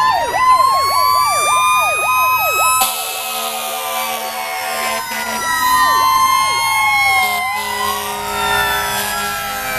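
Several fire-apparatus sirens sounding together as the trucks pass: a fast yelp repeating about three times a second over slower wails that rise and fall. About three seconds in the yelp stops, and a steady lower tone cuts in for a couple of seconds, then again near the end.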